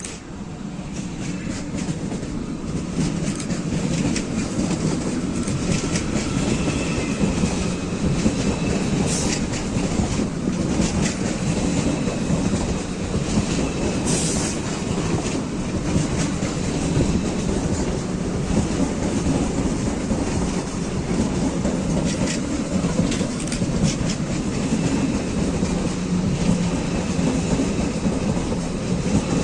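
Passenger train rolling through a station, its wheels clacking over rail joints and points, with a faint wheel squeal now and then. It grows louder over the first few seconds, then runs steadily.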